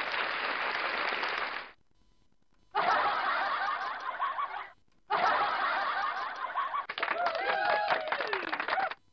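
Canned laughter sound effects played from a podcast sound board's preset buttons, three clips in a row with short silent gaps between them. A few sliding tones come in near the end of the last clip.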